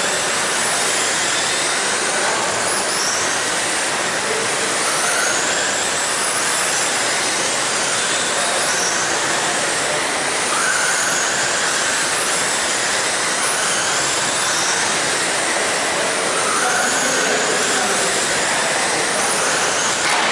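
Several RC sprint cars with 13.5-turn brushless electric motors racing on a dirt oval: repeated rising motor whines every few seconds over a steady hiss.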